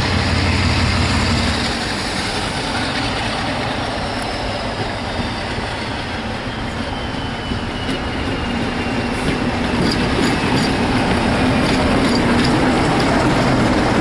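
A Class 47 diesel locomotive's Sulzer twelve-cylinder engine running as it approaches and passes hauling coaches, growing louder near the end. A thin whistle slowly falls in pitch through the middle.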